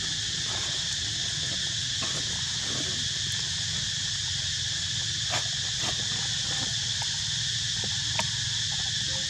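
Steady high-pitched drone of insects, with faint squeaks from a baby macaque early on and a few sharp clicks about halfway through and near the end.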